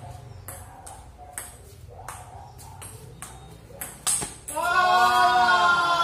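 Table tennis rally: the ball clicking off paddles and the table two or three times a second, ending with a hard hit about four seconds in. Then a loud, drawn-out shout from a person, bending in pitch and held for about two seconds.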